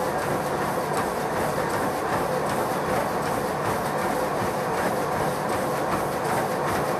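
Running footfalls pounding a motorised treadmill's belt in a quick, even rhythm, over the steady hum of the treadmill's motor and belt.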